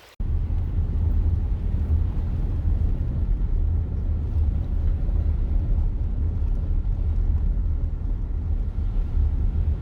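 Wind rumbling and buffeting on the microphone outdoors: a steady, rough, deep noise that sets in abruptly and keeps going unevenly.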